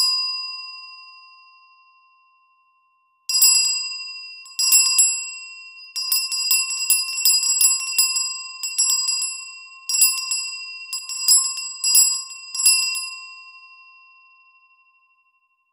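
A Christmas bell rung as the traditional signal that the presents have arrived. One stroke rings out and fades, then after about three seconds comes a run of quick strokes lasting about ten seconds, which rings out near the end.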